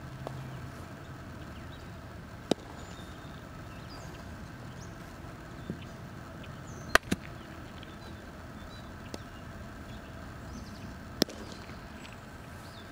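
Sharp cracks of a baseball during infield ground-ball practice, about four seconds apart, the loudest in the middle a quick double crack, with fainter knocks in between, over a steady outdoor background.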